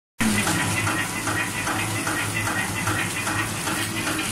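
Flour clay packing machine running at speed, a steady hum under a fast, regular clatter as it wraps clay sticks into packs.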